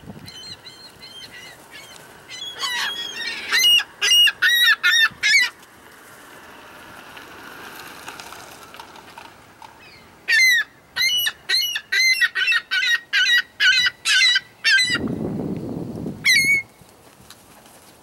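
Gulls calling in two runs of rapid, repeated yelping notes: a short run of about half a dozen calls a few seconds in, then a longer run of more than a dozen from about ten seconds. A brief low rush of noise sits under the end of the second run.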